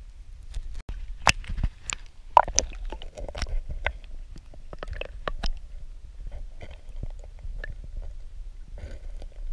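Underwater sound of a river through an action camera's waterproof housing: a steady, muffled low rumble with scattered sharp clicks and knocks. The clicks are thickest in the first half, as the camera goes into the water, and sparser once it is submerged.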